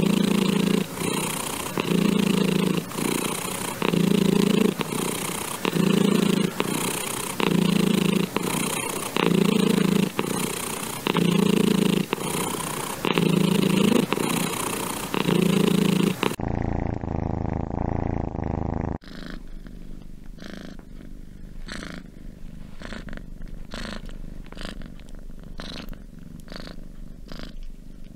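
Domestic cats purring. A loud, close purr swells and eases with each breath about every two seconds. After a short muffled stretch about two-thirds in, a softer purr follows.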